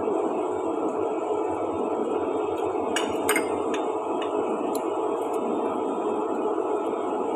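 A few sharp clinks of utensils against dishes, two close together about three seconds in and a fainter one a little later, as chopsticks knock on a plate or bowl. A steady even noise runs underneath.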